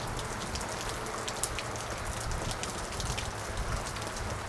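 A steady downpour of heavy rain, dotted with many sharp ticks of single drops striking.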